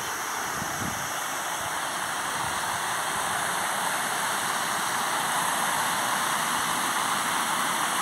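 Small rain-fed waterfall rushing steadily over rock, a constant hiss of falling and flowing water that grows slightly louder toward the end.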